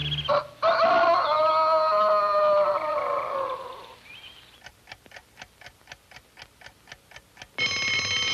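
Cartoon score music fades out, then a clock ticks softly, about four ticks a second. Near the end an alarm clock bell starts ringing loudly.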